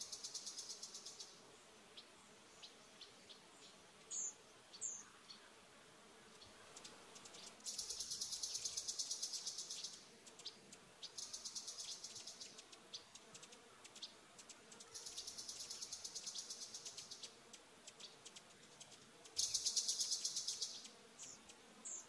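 High, rapidly pulsed buzzing trills, insect-like, in four bursts of one to two and a half seconds that come every several seconds, each fading out in spaced pulses. Two short, high, falling bird chirps come about four and five seconds in.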